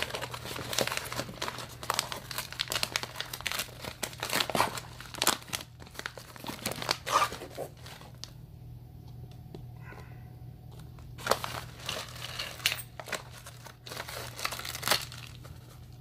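Crinkling and crackling of a padded paper mailer being handled and pulled out of a cardboard box, then torn open, in bursts with a quieter pause of a few seconds about halfway through.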